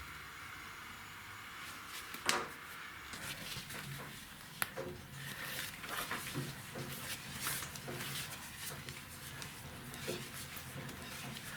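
Scattered light clicks and knocks of handling work, with a sharper knock about two seconds in and a sharp click near five seconds, over a faint steady low hum.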